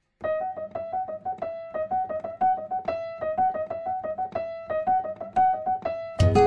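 Background music: a piano-like keyboard plays a fast figure of rapidly repeated notes that alternate between two pitches. Drums and bass come in just before the end.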